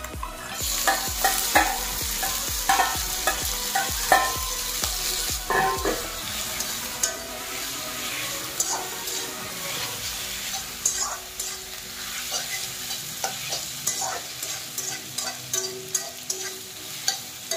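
Spiced duck meat hitting hot oil and onions in a kadai: a loud sizzle starts about half a second in and eases after about five seconds into steady frying. A wooden spatula stirs and scrapes the meat around the pan with many short knocks.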